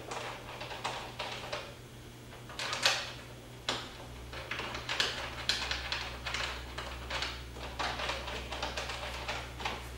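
Irregular small clicks and scrapes of hands working a spoiler piece against a Corvette's rear deck and starting its mounting screws, over a steady low hum.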